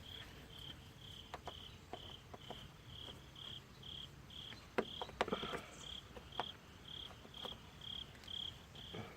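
A cricket chirping steadily, short even chirps about twice a second, with a few faint scattered clicks and taps.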